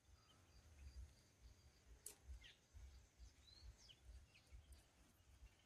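Near silence: faint outdoor ambience with a low rumble and a few scattered faint bird chirps.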